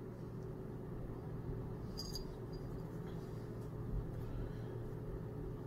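Quiet room tone: a steady low hum with a faint click about two seconds in.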